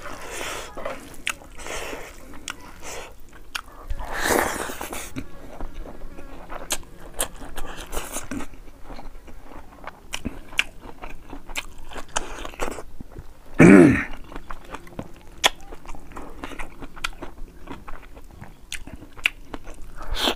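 Eating sounds from a man eating boiled fish head and rice by hand: chewing, with many small mouth clicks and smacks throughout and one brief louder sound from the mouth about two-thirds of the way through.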